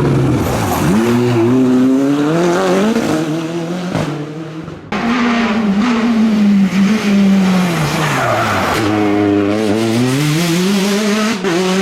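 Rally car engine at full throttle, its pitch climbing as it accelerates. About five seconds in another pass begins: the engine note falls as the car brakes and shifts down, then climbs again as it pulls away.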